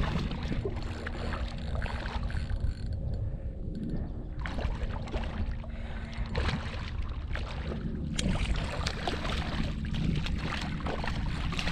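Hooked redfish thrashing and splashing at the surface of shallow water while being played on a rod, in many short splashes over a steady low rumble.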